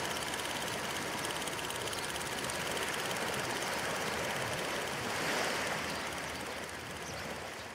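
Film projector running: a steady mechanical whir with a thin steady hum through it.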